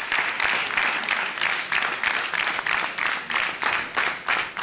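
Audience applauding, the clapping settling into an even rhythm of about four claps a second.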